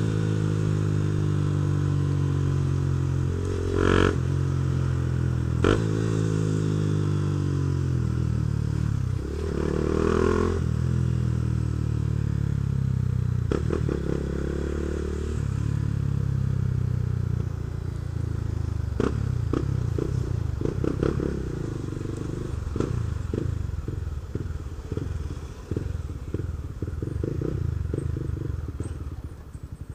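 Honda CB Twister's single-cylinder engine running through a Protork sport exhaust while riding, its pitch rising and falling with the throttle and gear changes. In the last third the revs drop and the exhaust note breaks into a quick, uneven crackle of separate pulses.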